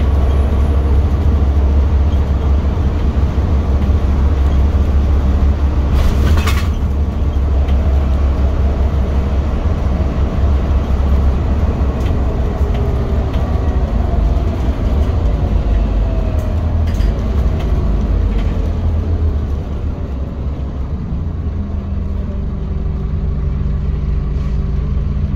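Scania OmniCity diesel bus heard from inside the passenger saloon: the engine and drivetrain run with a heavy low rumble while under way, with a short hiss about six seconds in. The engine note falls as the bus slows, and it settles to a steadier, slightly quieter idle near the end.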